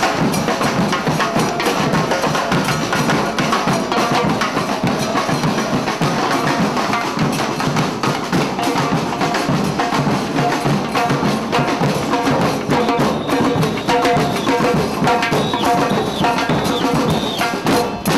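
A street band's drums and percussion playing a steady, busy rhythm. Pitched melodic notes join in during the second half.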